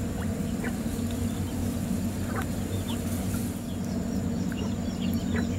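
Outdoor marsh ambience: a steady low hum with short, faint bird chirps scattered through it.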